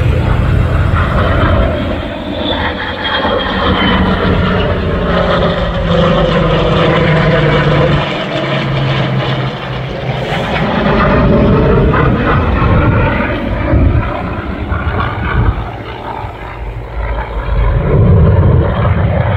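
Airplane engine running loudly as an aircraft flies past overhead, its pitch slowly sliding down and back up as it passes.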